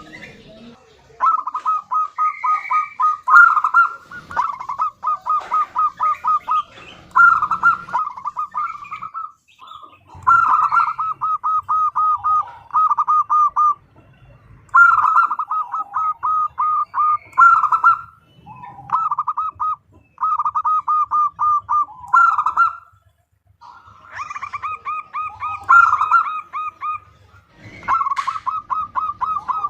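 Female zebra dove (perkutut) calling in rapid runs of short, evenly repeated staccato notes, each run lasting one to three seconds and broken by short pauses: the call a hen gives to draw a male.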